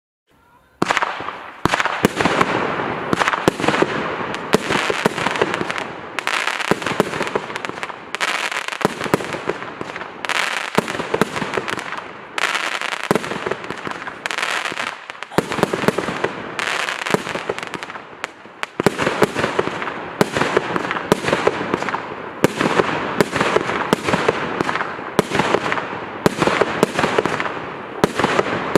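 Bazooka Barrage consumer fireworks cake firing, starting about a second in: a rapid, dense string of launches and bangs in runs, broken by brief lulls every few seconds.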